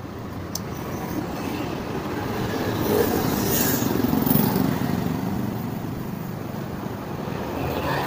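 A motor vehicle passing by on the road. Its engine and tyre noise swells to a peak about halfway through, then fades away.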